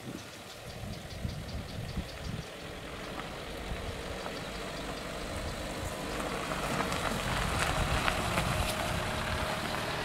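A Dacia Duster SUV drives slowly along a dirt track, its engine running low and steady. It grows louder as it nears, and from about halfway the tyres crackle on the gravel.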